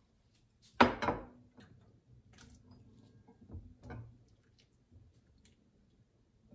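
A ceramic bowl set down with a sharp clack on a stone countertop about a second in, then light clicks and a couple of soft knocks of chopsticks against the bowls as cooked udon noodles are lifted and shared out.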